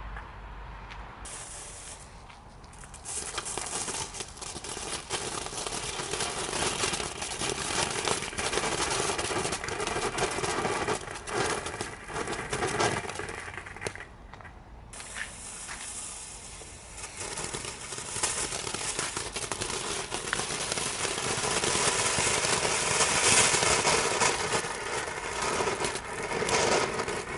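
Weco Dino Multicolor mini ground fountains burning, a spraying hiss dense with sharp crackles. It drops away for a few seconds about halfway through, then builds again and is loudest near the end.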